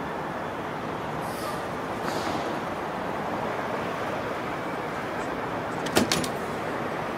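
Steady background rumble. About six seconds in come two sharp clicks close together, a front door's lock or latch.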